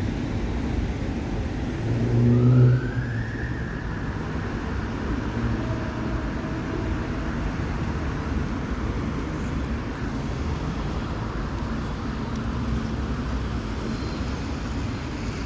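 Road traffic: a steady low rumble of passing vehicles, with one louder vehicle going by about two seconds in, carrying a faint rising whine.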